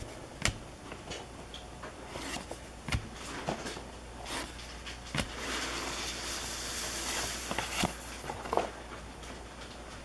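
Stack of O-Pee-Chee hockey cards handled between the fingers, cards slid off the stack and flipped one by one, with scattered sharp snaps and taps and a longer rubbing swish of card on card a little past halfway.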